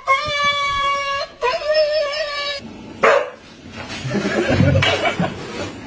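A dog howling: two long, steady notes in the first couple of seconds, then rougher, noisier sounds.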